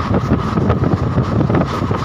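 Wind buffeting the microphone at an open window of a moving train, over the train's steady running rumble.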